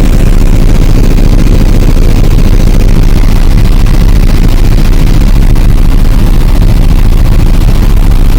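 Helicopter heard from inside the cabin in flight: a loud, steady rotor and engine din with a deep, even hum underneath, unchanging throughout.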